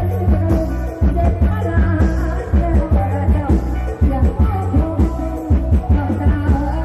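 A rot hae sound truck's live band playing loud amplified Isan rock music with heavy bass and a steady drum beat.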